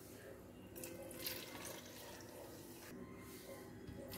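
Faint trickle of carbonated orange soda (Mirinda) poured from a plastic bottle into a plastic blender jug over cut peaches, the pour starting near the end.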